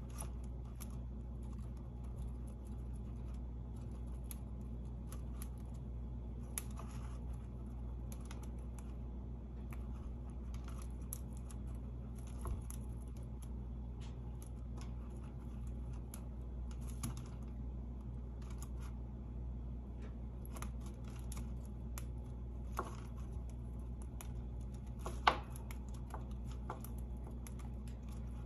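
Chinchilla gnawing on the woven ball of an apple-wood dumbbell chew toy: a run of small, irregular crunching clicks, with one sharper snap about 25 seconds in.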